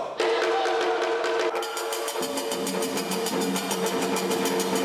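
Tall standing wooden hand drums start a fast, even beat about a second and a half in, over long held notes, with a lower held note joining soon after.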